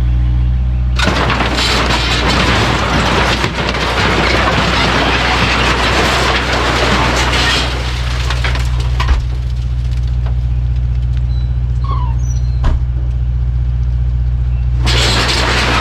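Kubota U55-4 mini excavator's diesel engine running steadily, with a loud rush of noisy working sound for the first several seconds and again near the end, and two sharp clanks in between.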